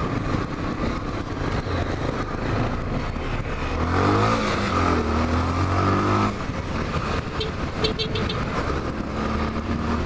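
Honda XRE 300's single-cylinder engine running under way in slow traffic, with steady wind rush on the camera microphone. About four seconds in the engine revs up through a gear change for roughly two seconds, then drops back to a steady run.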